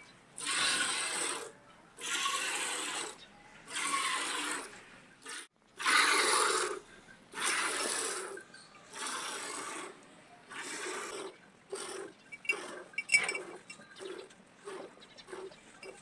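Squirts of milk hissing into a part-filled steel bucket as a cow is milked by hand, roughly one stroke a second. The strokes become shorter and quicker near the end.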